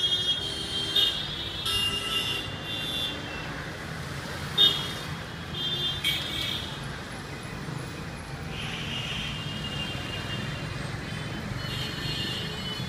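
Dense city street traffic: a steady rumble of engines with frequent short, high-pitched vehicle horn honks from several vehicles, coming in clusters throughout. One sharp knock stands out about four and a half seconds in.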